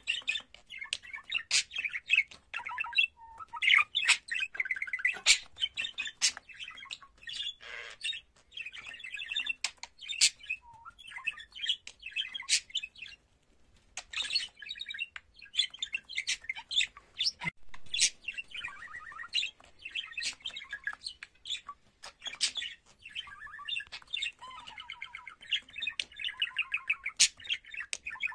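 Budgerigar warbling: a fast, rambling chatter of chirps, warbled notes and sharp clicks, with a short break about halfway through.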